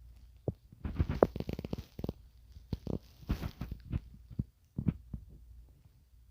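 Body shifting through a lower-back stretch on the floor: cloth rubbing and rustling, with a quick run of small clicks and pops about a second in and a few single sharp pops later.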